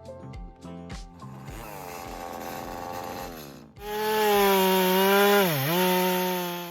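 Two-stroke chainsaw engine running loud at high revs from about four seconds in. Its pitch dips sharply once, a second or so later, and climbs back. Background music plays before it.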